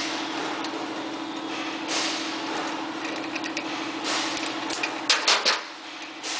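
Metal scraping and clicking of a hand-operated rivet-nut (Plusnut) installation tool as it is worked to set a nut in the plate, with short scrapes about every two seconds and a quick run of sharp metallic clicks a little after five seconds in.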